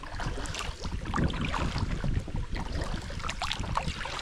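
Double-bladed kayak paddle strokes: the blades dipping and splashing in the water and dripping, in a quick irregular run of small splashes over a low rumble.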